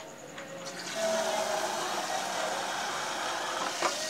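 Tap water running steadily into an aluminium pot, starting about a second in, with a light knock near the end.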